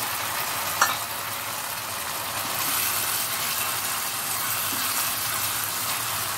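Tomato-spice masala with mashed chhena sizzling in oil in a pan as it is stirred, with one sharp knock about a second in.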